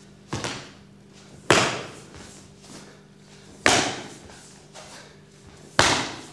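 Four sharp thuds about two seconds apart, the first lighter, each with a short echo: stamping footwork of a performer moving through a Xingyi staff form on a hard studio floor. A faint steady hum lies underneath.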